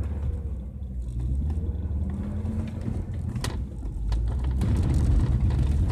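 Volvo car's engine running as heard inside the cabin, a steady low drone whose note climbs a little and gets louder in the last couple of seconds. A single sharp click about three and a half seconds in.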